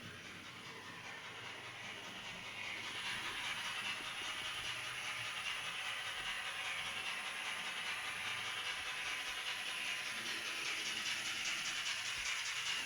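Sound-decoder steam-locomotive sound from a model BR18 fitted with an ESU LokSound V5: a steady steam hiss with fast, even chuffing played through the model's small speaker. It grows louder about two and a half seconds in.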